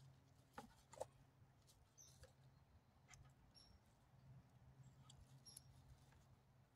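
Near silence: faint outdoor room tone with a low steady hum, two soft clicks in the first second and a few faint, very short high peeps.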